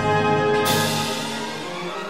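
Orchestral background music. A hiss comes in a little over half a second in and fades away.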